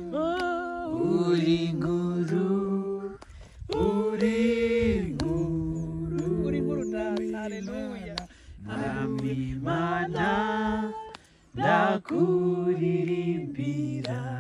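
Several voices singing a praise song to God unaccompanied, in long held phrases with short breaks between them.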